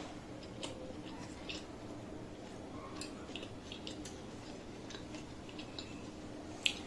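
A person chewing food close to the microphone: scattered soft mouth clicks and wet chewing sounds, with one sharper click near the end.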